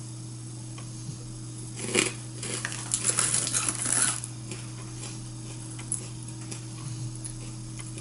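Foil snack bag of Indian savoury mix crinkling and rustling as it is handled, for about two seconds mid-way, over a steady low electrical hum.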